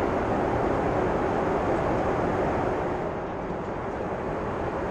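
Steady cabin noise of an airliner in flight: the even rush of engines and airflow, a little quieter after about three seconds.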